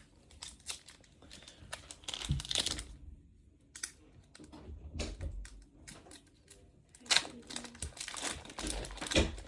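Irregular crinkling and rustling handling noises with scattered light clicks, loudest in bursts about two and a half seconds in and again about seven seconds in.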